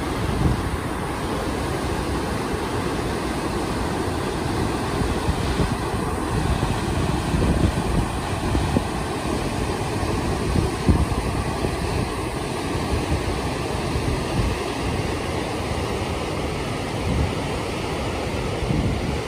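Fast mountain river rushing over boulders: a steady churn of whitewater, with wind gusting on the microphone.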